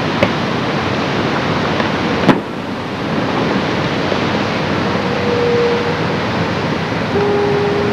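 Steady rushing noise of wind and surf on the camcorder microphone. A faint click comes near the start, then a single sharp firework bang about two seconds in. In the second half, long steady horn-like notes sound, one at about five seconds and another from about seven seconds on.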